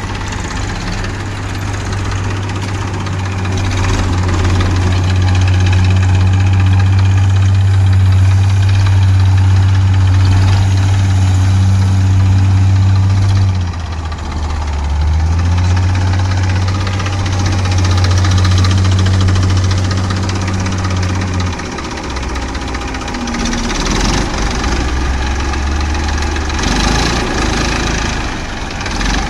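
Diesel engine of a red farm tractor running steadily as it is driven, with a knocking diesel clatter. Its note dips and climbs back about halfway through, then drops to a lower, idle-like note a few seconds later.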